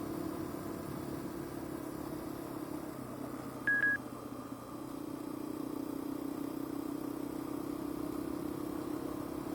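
Motorcycle engine running steadily while riding a gravel road; its note drops about three seconds in and picks back up about two seconds later. A short electronic beep sounds once, about four seconds in.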